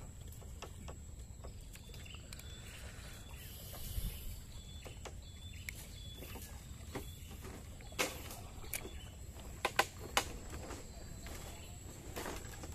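Low steady rumble with a faint high whine, and scattered sharp clicks and taps in the second half, the loudest a quick pair about ten seconds in.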